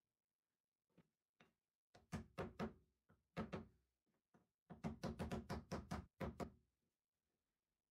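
Mallet knocking on plywood blocks while seating ball bearings in them: a couple of light taps, then short groups of strikes, ending in a quick run of about a dozen blows at roughly six a second.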